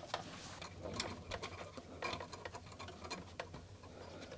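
Light, scattered clicks and taps of a dot matrix printer's plastic and metal parts being handled and fitted together by hand during reassembly.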